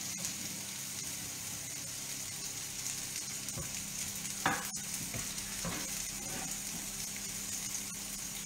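Diced zucchini sizzling in a skillet as they sauté, a steady hiss, with a sharp tap about halfway through.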